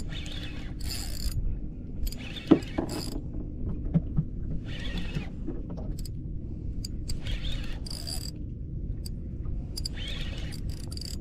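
Spinning reel during a fish fight: the handle being cranked, with short bursts of ratcheting drag every second or two as the hooked fish takes line. A steady low hum runs underneath, and there is a sharp knock about two and a half seconds in.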